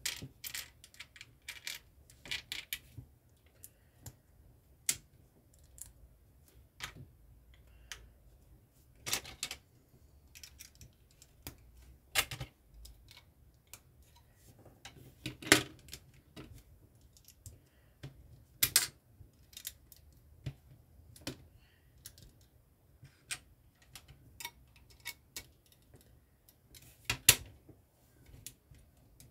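Plastic LEGO bricks clicking as they are handled and pressed together on a baseplate: irregular sharp clicks, with a few louder snaps.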